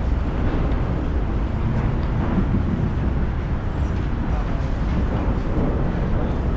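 Steady low rumble of vehicle noise, an even roar heaviest in the low end with no single event standing out.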